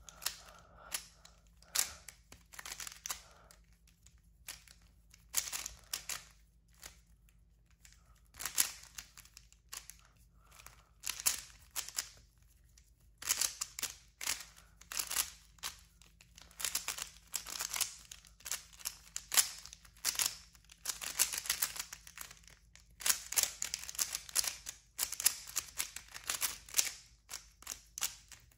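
Plastic clicking and clacking of a QiYi Warrior W 3x3 speed cube being turned fast through a timed beginner's-method solve. The turns come in quick flurries broken by short pauses.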